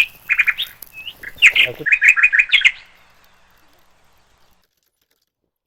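Small birds chirping: quick runs of short high notes that stop about three seconds in, followed by silence.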